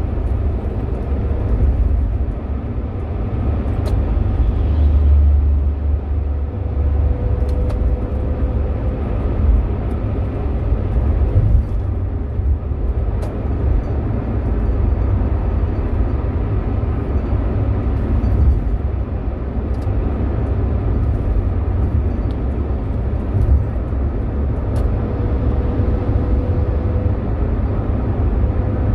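Steady low rumble of road and engine noise inside a car's cabin while it cruises at highway speed, with tyre hiss over it.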